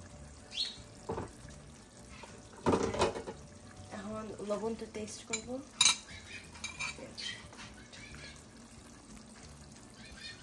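Metal spoons clinking and knocking against an enamelled pot and the dishes beside it, with some stirring; a few separate clinks, the loudest about three seconds in.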